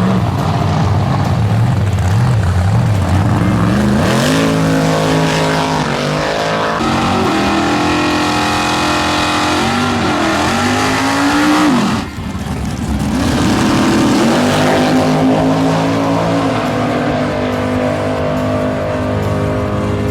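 Drag race car engines revving and running hard, their pitch rising and falling several times, with an abrupt break about twelve seconds in before another engine picks up.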